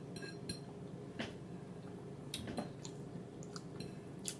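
Eating utensil clicking and scraping against a dish in several short, sharp clicks, the loudest near the end.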